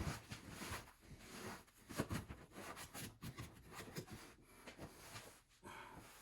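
Faint, scattered handling noises: light taps and rubbing, irregular and brief.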